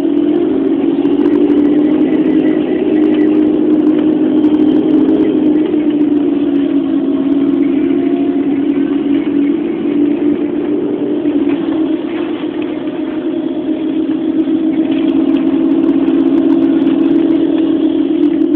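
Volvo Olympian double-decker bus's diesel engine running as the bus drives along, heard from inside the passenger saloon. The engine note eases a little about two-thirds of the way through and then builds again.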